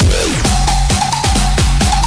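Electronic dance music with a steady driving beat; a heavy bass line comes in right at the beginning.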